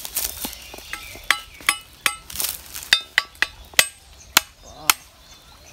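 A string of sharp, hard clinks and knocks, each with a brief ring, coming irregularly about two to three a second.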